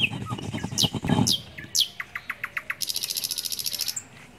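Stone roller grinding dried red chillies on an ammi grinding stone, in rough rhythmic strokes that stop about a second in. Birds call over and after it: three falling whistles, a quick run of short notes, then a fast high trill that stops near the end.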